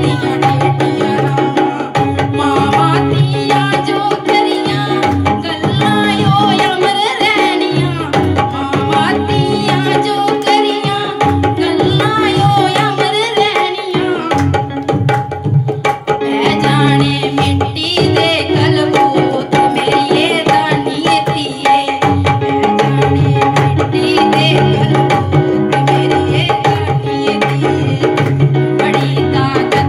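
A woman singing a Dogri folk song into a microphone, amplified through a PA speaker, over a steady hand-drum beat.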